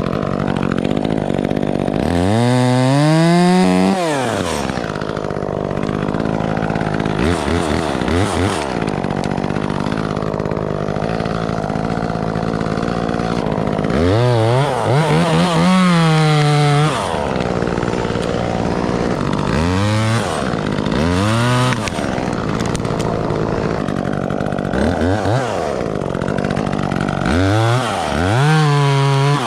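Gas chainsaw running, revved up and dropped back several times, with steady running between the revs.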